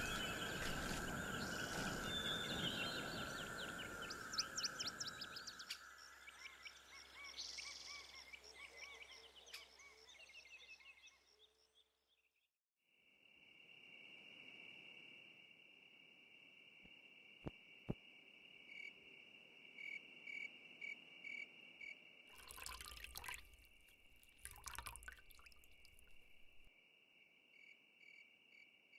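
Forest ambience of birds calling over a steady insect hum. About halfway through it cuts to a brief silence, followed by a steady chorus of crickets at night, with a few louder noisy sounds near the end.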